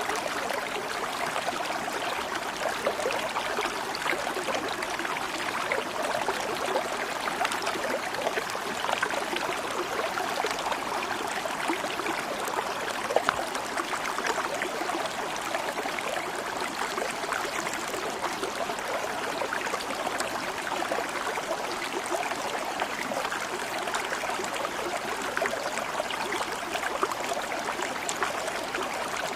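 Water flowing steadily in a stream, an even rushing with a fine, constantly flickering texture.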